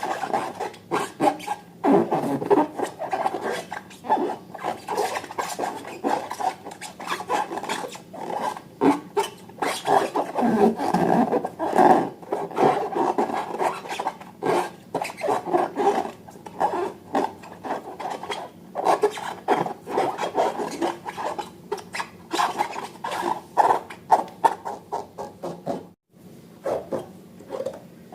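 Hands squeezing and rubbing rubber balloons and slime: irregular rubbery squeaks, crackles and sticky squelches, with a short pause near the end.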